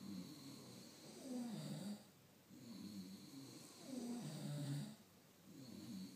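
A man snoring, a string of low snores a second or so apart with short pauses between them.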